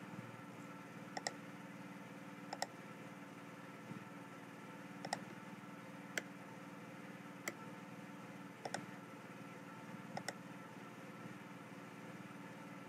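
Computer mouse clicking: about nine sharp clicks, some in quick pairs, spaced a second or so apart, over a steady low hum.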